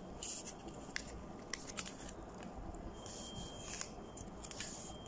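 A sheet of origami paper being folded and creased by hand: faint, scattered paper crackles and rustles.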